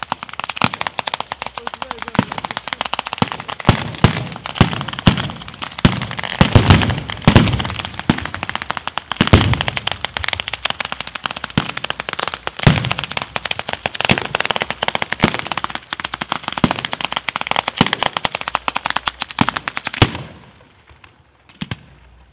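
A ground firecracker battery going off: a dense, rapid run of sharp bangs with heavier booms mixed in, stopping suddenly about twenty seconds in, then one last bang.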